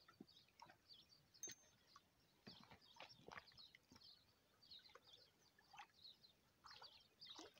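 Near silence with faint, scattered bird chirps and a few soft ticks.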